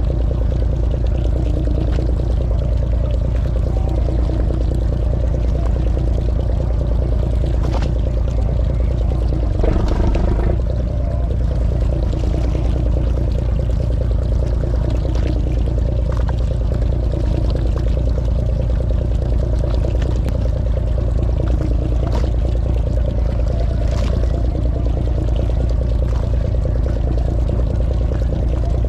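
Charter fishing boat's engine running steadily under way, with water rushing along the hull; the engine note shifts slightly about ten seconds in.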